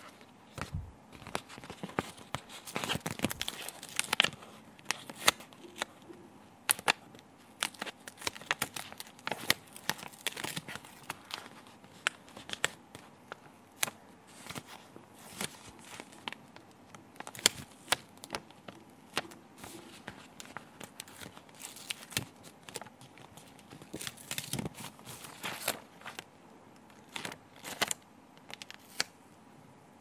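Glossy stickers being peeled off a sticker sheet and handled, with irregular crinkles and sharp crackles of the stiff paper throughout.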